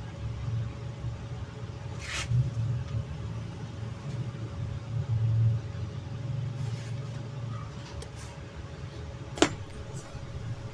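Steady low rumble in the background, with light clicks from small metal laptop parts and tweezers being handled. A soft click comes about two seconds in, and a sharp click, the loudest sound, near the end.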